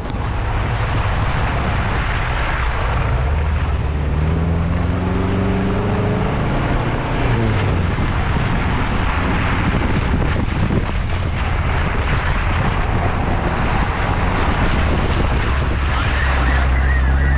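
A 4x4's engine running under load, its revs climbing from about four seconds in and dropping back a few seconds later, over a steady rushing noise of wind and water.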